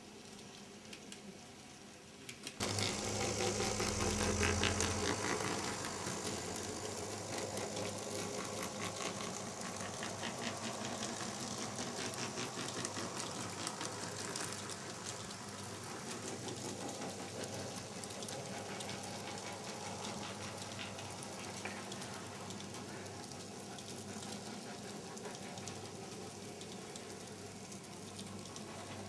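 Z scale model freight train of intermodal spine cars and centrebeam flatcars running past on the track: rapid, steady clicking of the tiny wheels on the rails over a whirring hum. It gets much louder about two and a half seconds in, as the cars pass close by.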